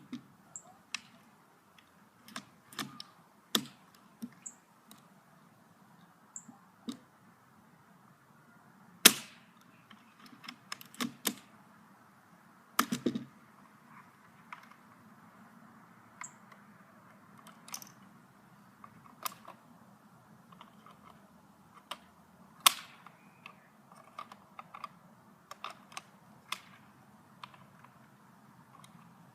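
Airsoft sniper rifle being fired and handled: irregular sharp clicks and snaps, with the loudest about nine, thirteen and twenty-three seconds in.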